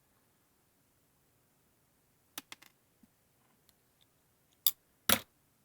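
Clicks and snaps of small hard parts being handled and pried while an electric razor is taken apart: a few light clicks about two and a half seconds in, then two loud, sharp clicks near the end.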